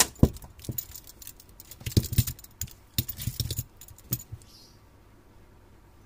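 Plastic handlebar switch housings and their wires clattering as one switch is picked out of a tangled pile and handled: a string of sharp clicks and rattles that stops about four seconds in.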